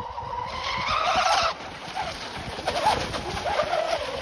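RC catamaran race boat's motor whining at speed across the water, rising in pitch and then dropping off suddenly about a second and a half in, then running on with a wavering pitch as the boat bounces and turns.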